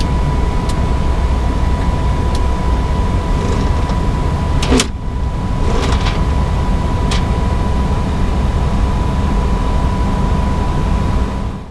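Steady flight-deck noise of an Airbus A320neo in the climb: airflow and engine rumble, heaviest in the low end, with a thin steady tone over it. A few sharp clicks, the loudest about five seconds in, and the noise fades out near the end.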